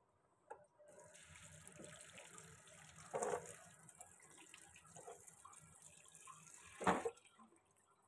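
Kitchen tap running onto cauliflower florets and potato pieces in a plastic colander in a steel sink, rinsing them. The water starts about a second in and stops near the end, with two brief louder bursts along the way.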